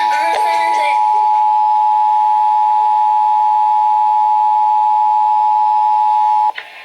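Emergency Alert System attention signal: two steady tones sounding together just under 1 kHz (the standard 853 and 960 Hz pair), loud and unbroken, cutting off abruptly near the end. It announces the monthly EAS test message.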